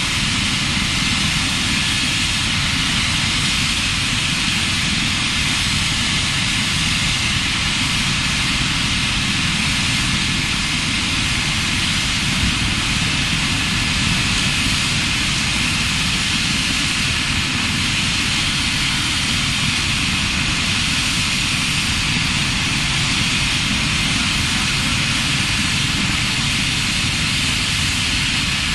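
Medical helicopter's turbine engine running with a loud, steady rush and hiss that does not change.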